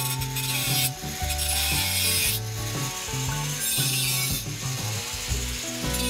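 Angle grinder with a thin cutting disc cutting into a steel plate clamped in a vise, a harsh rasping grind that comes in stretches as the disc bites and eases off. Background music runs under it.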